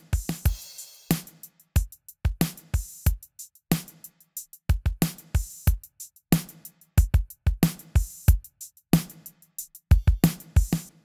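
Drum track (kick, snare and hi-hat) playing a steady groove through a Pultec-style EQ plugin with a boost dialled in. The playback cuts off abruptly at the end.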